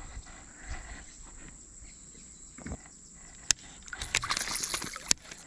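Faint handling noises while landing a fish: two sharp clicks, one about three and a half seconds in and one about five seconds in, with a brief rustle between them over low background noise.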